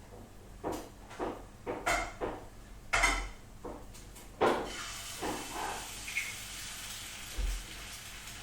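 Kitchen clatter: about ten short knocks and clinks of kitchenware being handled, bunched in the first half. A steady hiss sets in about halfway through.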